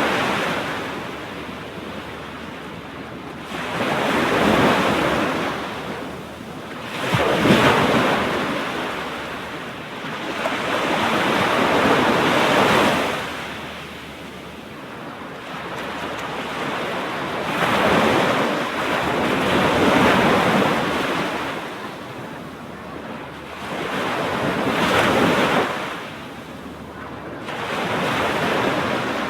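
Ocean surf breaking on a sandy beach and washing back, a steady hiss that swells and fades with each wave about every four to five seconds, with some wind on the microphone.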